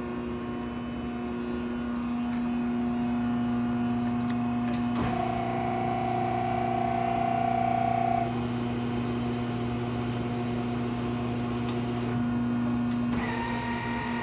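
Betenbender 50-ton hydraulic press brake running: its hydraulic pump motor hums steadily. About five seconds in, a higher whine and hiss join for about three seconds as the ram cycles, and the tone changes again near the end.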